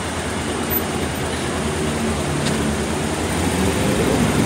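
Steady city street traffic noise with a vehicle engine running low underneath, growing slightly louder near the end.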